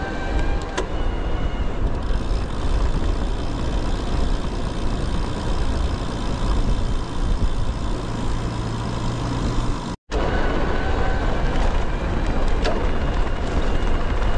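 Wind noise on a handlebar-mounted camera's microphone and tyre noise from a road bike being ridden along the street, steady throughout apart from a brief dropout about ten seconds in.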